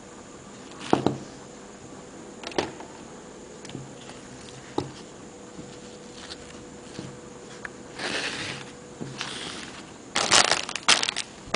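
Handling noise of a nylon dog leash and its packaging: scattered clicks and taps, a rustle about eight seconds in, and loud crinkling of plastic wrapping near the end.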